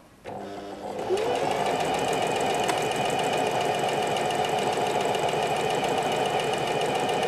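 Singer Heavy Duty 4423 electric sewing machine sewing a buttonhole with its buttonhole foot: the motor starts a fraction of a second in, comes up to speed about a second in, then runs steadily with a fast, even needle rhythm.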